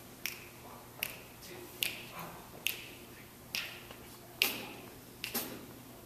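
Finger snaps keeping a steady slow beat, about one every 0.8 seconds, with no instruments playing yet.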